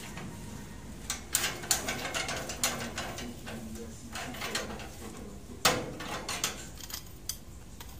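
Steel rebar being bent into stirrups by hand with a bending bar on a bench jig: a run of sharp metal clicks and clanks, with one louder clank about five and a half seconds in.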